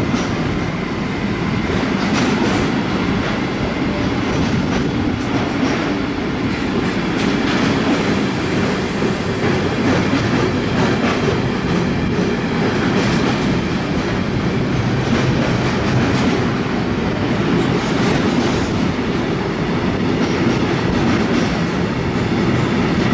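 Intermodal freight train of wagons carrying truck semi-trailers rolling steadily past: a continuous rumble of wheels on rail, with repeated clacks as the wheels cross the rail joints.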